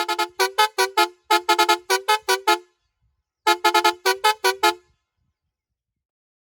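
Roots HexaTone multi-tone car horn playing one of its preset patterns: a fast run of short toots in two pitches for about two and a half seconds, then after a short pause a second, shorter run.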